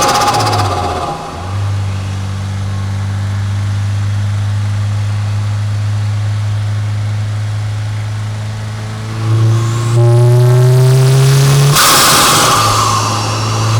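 Turbocharged 2022 Subaru WRX 2.4-litre flat-four heard through its BMS intake, with the stock bypass valve. A loud whoosh of released boost and turbo flutter on throttle lift at the start, then the engine running steadily, climbing in pitch under acceleration from about nine seconds in. Another loud whoosh comes about twelve seconds in, and it accelerates again near the end.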